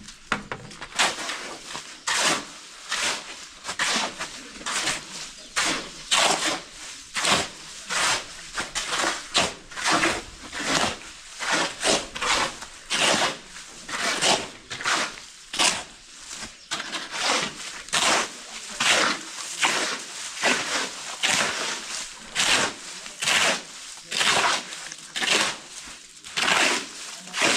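Rhythmic scraping, one stroke about every two-thirds of a second, kept up steadily.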